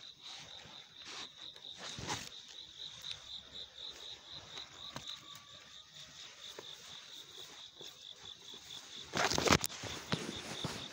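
An insect chirping outdoors, a steady train of short high pulses repeating several times a second. About nine seconds in comes a brief loud burst of rustling noise.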